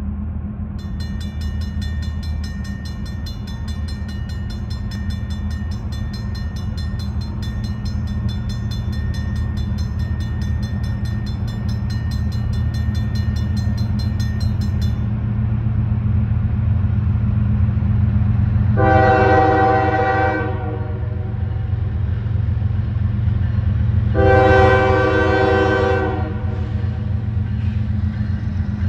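Grade-crossing warning bell ringing rapidly from about a second in until about halfway, over a low rumble of approaching Norfolk Southern diesel locomotives that slowly grows louder. The lead locomotive's horn then sounds twice, two blasts of a couple of seconds each, about five seconds apart.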